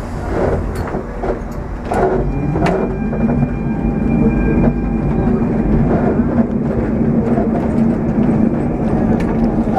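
Lisbon electric tram running on its rails: a steady low hum and rumble, with a few sharp clanks and knocks in the first three seconds.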